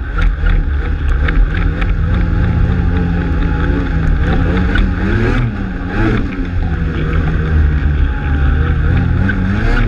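Ski-Doo Freeride 800 snowmobile's two-stroke engine running hard under throttle on a hill climb, its pitch dipping and rising again about halfway through.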